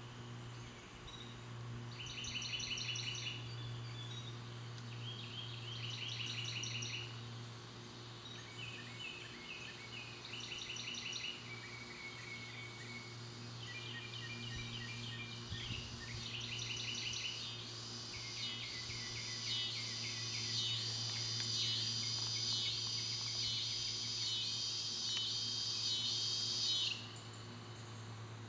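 Dusk woodland animal chorus: repeated high, rapidly pulsed trills about a second or two long, building into a dense run of calls that stops abruptly near the end. A steady low hum runs underneath.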